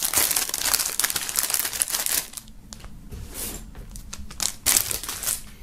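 Plastic shrink-wrap film crinkling as it is torn and peeled off a wrapped item, busy for about two seconds, then a few light rustles and taps as the pieces are handled.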